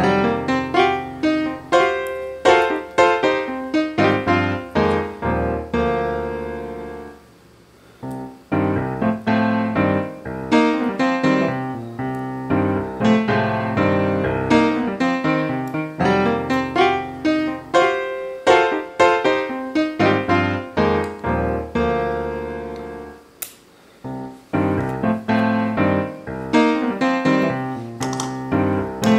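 Background piano music, a steady stream of struck notes with two brief pauses, about seven and about twenty-three seconds in.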